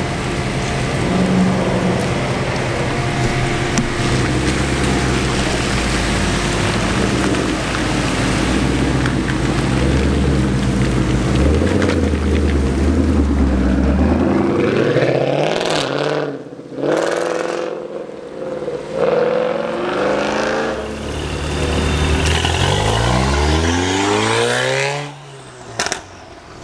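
Ford Mustang GT's V8 exhaust: a steady low idle, then from about halfway a series of sharp revs rising and falling in pitch, cut abruptly between shots. Near the end comes a long climbing rev.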